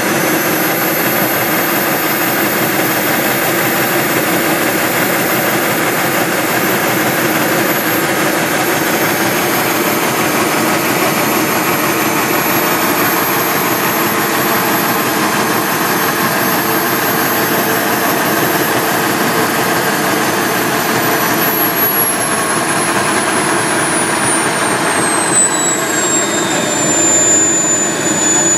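Model gas turbine running hard: a loud jet roar with a high-pitched whine. The whine climbs a little at the start and holds steady, then from about twenty seconds in it falls away over several seconds as the turbine slows to a lower speed and keeps running.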